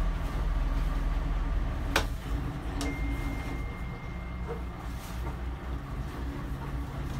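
Motor cruiser's inboard engine running steadily at low revs, with a sharp click about two seconds in as the throttle and gear lever is shifted through neutral. A faint thin high tone sounds for about two seconds after the click.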